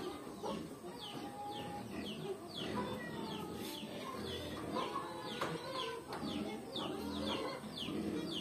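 Chickens clucking, with a steady run of short, high, falling chirps, two or three a second.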